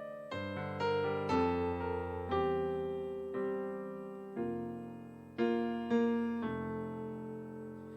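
Piano playing a slow, gentle worship-song introduction: chords and single notes struck about once a second, each ringing and fading before the next.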